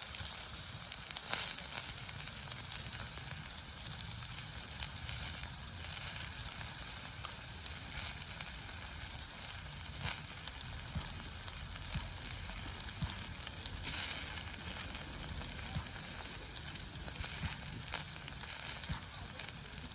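Beef fillet steak sizzling steadily on an iron plate over a campfire, with a few louder pops of spitting fat, the biggest about a second and a half in and again about fourteen seconds in.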